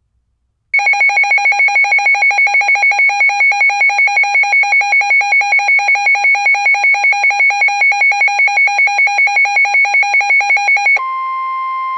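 Weather radio alert alarm beeping loudly and rapidly, about four beeps a second, starting about a second in: the radio signalling an incoming Special Marine Warning. Near the end it gives way to a steady, quieter single tone, the warning alarm tone of the NOAA Weather Radio broadcast heard through the radio's speaker.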